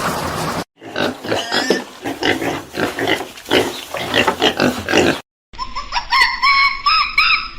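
An animal grunting in a run of rough, irregular pulses, like a pig. After a short break, a different animal gives high, repeated chirping calls that bend up and down.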